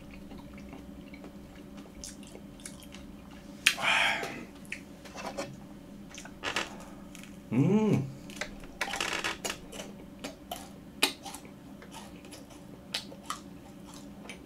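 Close-up eating sounds of a macaron: biting through the crisp shell, then chewing with small crackles and mouth clicks. A short hummed "mm" comes just before eight seconds.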